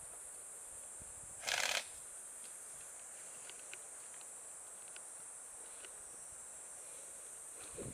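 Insects buzzing steadily at a high pitch, with one brief loud noisy burst about a second and a half in and a few faint ticks after it.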